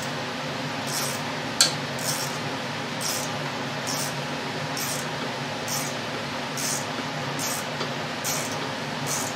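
A hanger bolt being turned into a wooden table leg with a wrench on a pair of locked nuts: short metallic clicks, about one a second, with a sharper click about one and a half seconds in, over a steady hum.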